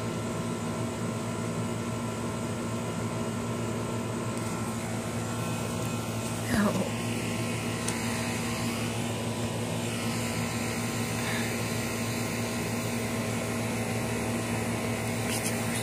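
Steady mechanical hum with a constant low tone, like a running machine or fan unit. About six and a half seconds in there is a short cry that falls quickly in pitch.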